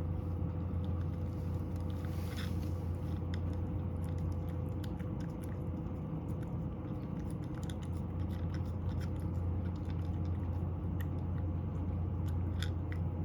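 Cat chewing dry kibble: small irregular crunching clicks throughout, over a steady low hum.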